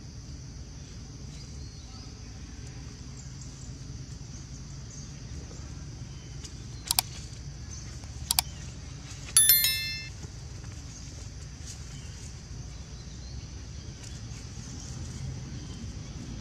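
Outdoor background of a steady high hiss and low rumble. About seven seconds in come a mouse click, then a quick double click, and then a click with a bright bell ding that fades within half a second: the sound effects of a like-and-subscribe button animation.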